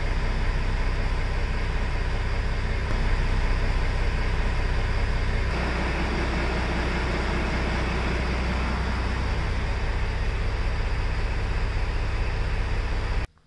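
Ford fire truck's engine running steadily just after being started. Its low running tone shifts slightly about five and a half seconds in, and the sound cuts off suddenly near the end.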